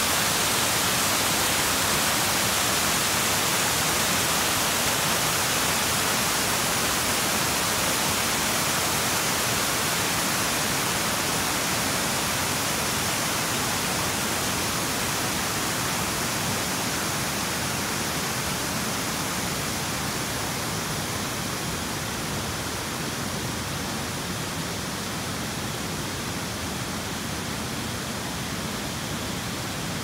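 Water of Shiraito Falls, a wide curtain of thin streams pouring over a rock face into a pool, rushing steadily. The rush grows slowly quieter.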